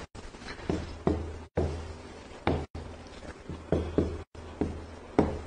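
About eight light, irregular knocks and taps of a pen or marker against a board as a diagram is written, over a low steady hum.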